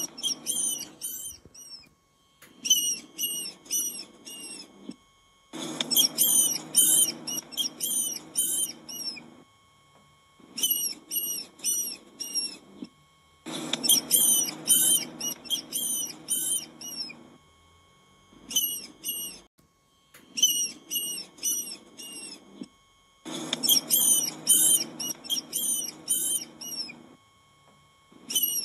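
Rodent squeaking: rapid high-pitched squeaks, several a second, in bouts of a few seconds separated by short pauses, with a low rustling noise under each bout.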